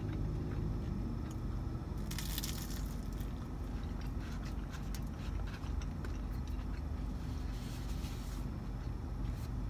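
A person chewing food, with small crunches and mouth clicks, over a steady low hum inside a car. A brief rustle about two seconds in.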